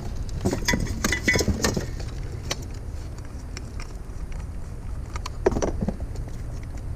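Small items being handled and rummaged through in a box: plastic and metal parts clinking, rattling and knocking, busiest in the first couple of seconds, with a sharp knock about five and a half seconds in. A steady low rumble runs underneath.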